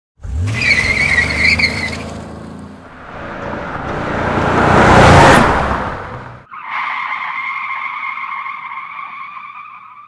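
Car sound effects: an engine revving with tires squealing, then a car rushing past that is loudest about five seconds in, then a long steady tire screech.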